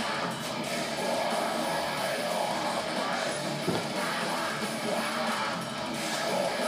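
Rock music with guitar and singing, steady in level throughout.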